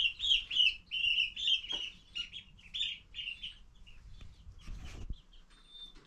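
Baby chicks peeping: a quick run of high chirps for the first three seconds, then scattered single peeps. A brief low rumble comes about five seconds in.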